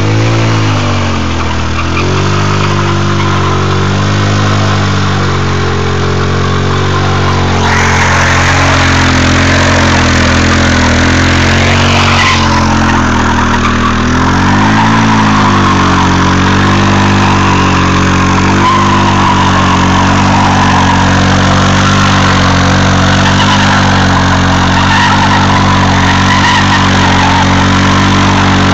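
150cc scooter engine held at high revs during a burnout while its rear tyre spins against the ground. The revs sag and pick back up briefly near the start and again about halfway. A loud rushing noise from the spinning tyre joins in about eight seconds in.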